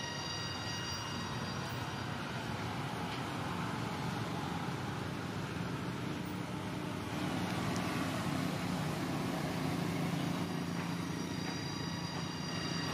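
Steady low background rumble, with a faint high-pitched whine in the first second that comes back for the last couple of seconds.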